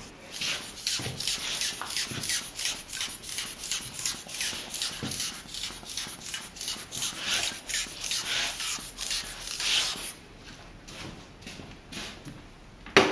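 Quick, rhythmic rustling and swishing as a plastic bottle of hair lotion is handled, stopping about ten seconds in. Near the end comes one sharp knock, the loudest sound, as the bottle is set down.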